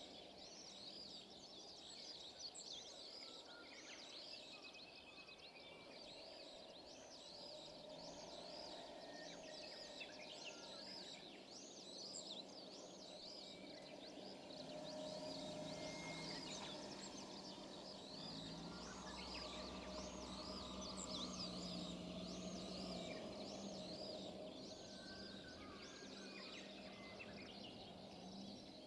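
Outdoor ambience: a continuous run of high-pitched wavering chirps, several a second. A low steady hum swells in the middle and fades again.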